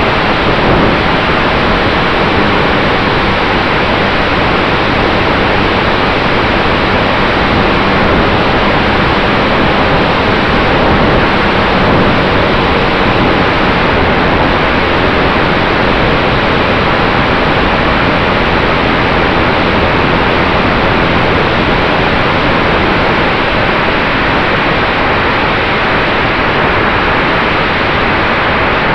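Loud, steady rush of airflow over the onboard camera of a radio-controlled P-51 Mustang model in flight, with a faint steady hum underneath.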